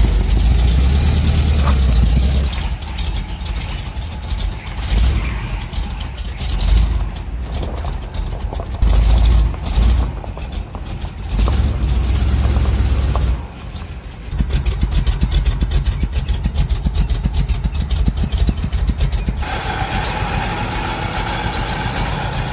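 Motor vehicle engine running, with a heavy low rumble that swells and drops repeatedly and a fast, even pulsing in the later part.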